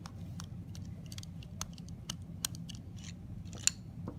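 A small stainless steel screw being unscrewed from a spray chamber: a run of small, irregular clicks and scrapes of tool and metal parts.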